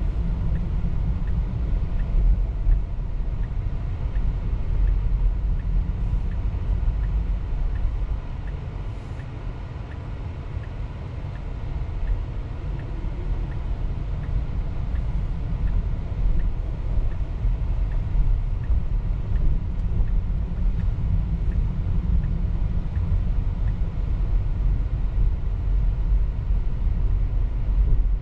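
Tyre and road noise inside a moving Tesla's cabin, a steady low rumble with no engine sound. It eases for a few seconds partway through, as if the car slows.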